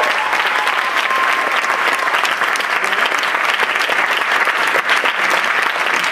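Theatre audience applauding steadily at the end of a musical number, a dense clatter of clapping.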